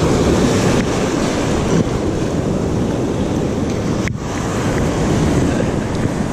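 Ocean surf washing and foaming in shallow water, with wind buffeting the microphone; a steady, loud rush with a brief dip about four seconds in.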